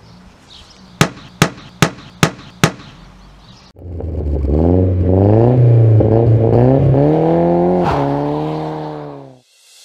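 Car engine revving: the pitch climbs, holds high with small wobbles for a few seconds, then drops away and fades out. Before it come five sharp clicks, about two and a half a second.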